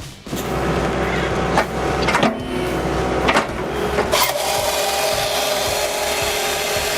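Engine-driven wood-cutting machinery running steadily, with several sharp knocks of wood.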